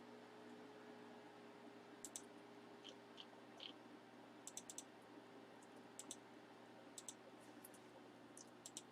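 Near silence with a faint steady hum and a few short, sharp clicks: a pair about two seconds in, a quick cluster around the middle, and a few more near the end.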